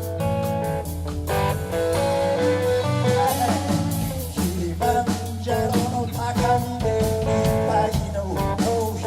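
Live band playing, with an electric guitar lead over bass and drums.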